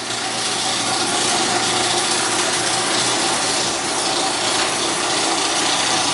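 LiftMaster garage door opener running loudly and steadily as it drives the door. The opener is failing to close the door, which the owner later traced to dirty safety-sensor lenses.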